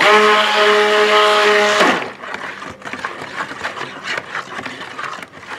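Handheld stick blender running in a bucket of cold-process soap batter for about two seconds, a steady motor hum, then switched off abruptly; a few light knocks follow. It is blending titanium dioxide into batter that is thickening fast.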